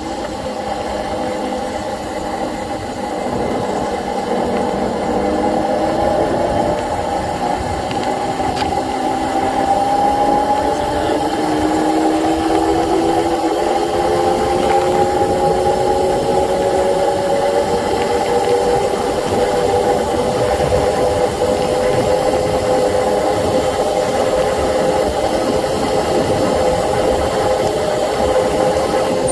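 Razor 750-watt electric bike's motor and drive whining under way, the whine rising in pitch over the first dozen seconds as speed builds, then holding steady, over a low rough rumble.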